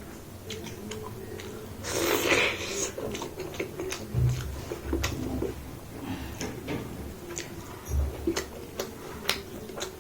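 Close-up mouth sounds of someone eating: many short wet clicks of chewing. A louder, noisier burst comes about two seconds in, and there are a few low thumps.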